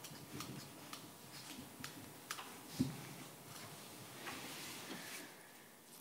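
Quiet meeting-room handling sounds: scattered small clicks and taps, one low thump about three seconds in, and paper rustling near the end.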